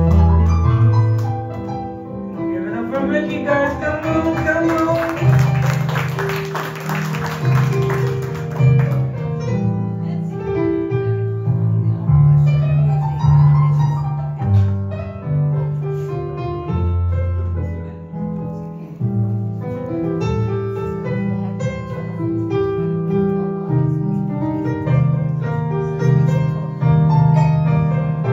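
Live jazz ballad, instrumental break: a keyboard plays a piano solo over a bass line, with a fast flurry of notes a few seconds in.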